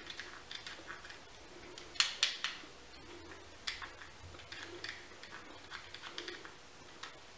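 Peeler blade scraping shavings off a piece of chocolate in short, irregular strokes, with quiet gaps between them; the loudest strokes come about two seconds in.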